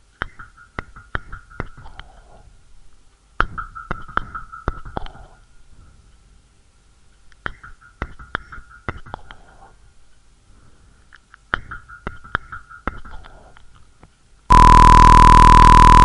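A looped synthetic sound effect: a short burst of sharp clicks over a thin high hum, repeated four times about every four seconds. Near the end a loud steady tone with hiss cuts in suddenly.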